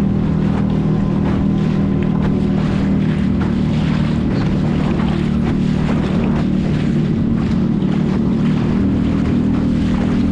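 Boat engine running at a steady drone, with water splashing against the hull and wind on the microphone.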